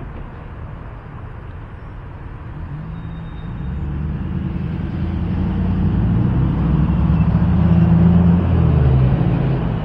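A heavy vehicle's engine approaching, its low hum growing steadily louder from about three seconds in.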